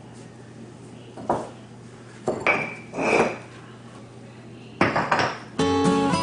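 Concrete landscape blocks being set down and knocked against one another: about four separate clacks and clinks, some ringing briefly. Acoustic guitar music starts near the end.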